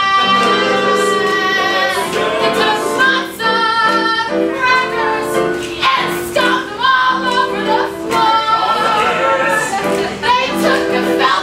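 Singing with instrumental accompaniment: an improvised song, with the voice holding long sung notes.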